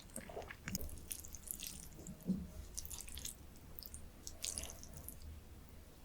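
Close-miked chewing of a mouthful: soft, wet mouth sounds with scattered small clicks and smacks, quieter than a crunch.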